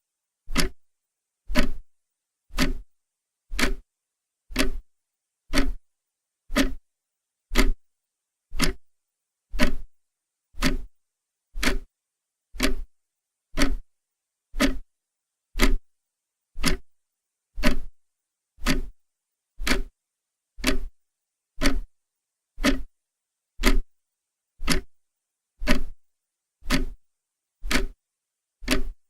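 Clock ticking steadily, one tick a second.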